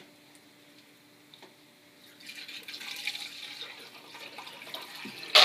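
Water poured into a funnel, splashing as it runs through a tube into a hanging cup, starting about two seconds in. Right at the end a sudden loud clatter as dry dog food slides off the tilting ramp into the dog bowl.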